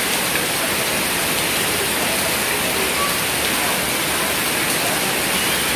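Heavy rain pouring down onto the street and puddles, a steady even hiss with no let-up.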